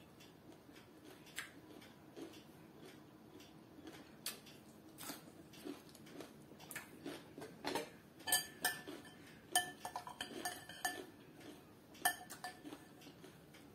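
Close chewing noises while eating, a string of small wet clicks, with a metal spoon and fork clinking against a glass serving bowl several times in the second half, each clink ringing briefly.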